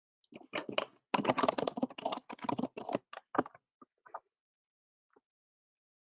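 Typing on a computer keyboard: a quick, dense run of key clicks lasting about four seconds, thinning out into a few scattered taps near the end.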